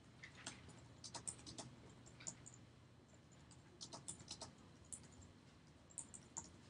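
Faint typing on a computer keyboard: irregular keystroke clicks in short runs, with pauses between them.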